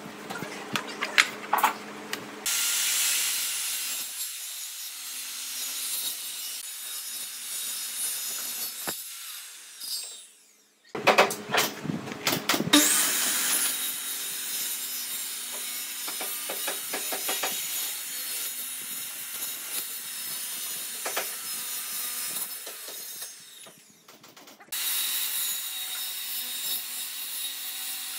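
Hand tools working wood: steady sawing or rasping hiss with several sharp clicks and knocks, changing abruptly a few times.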